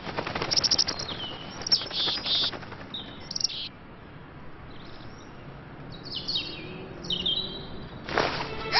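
Small songbirds chirping and twittering in quick high trills and short falling notes, in bursts with gaps between them. A short burst of noise comes near the end.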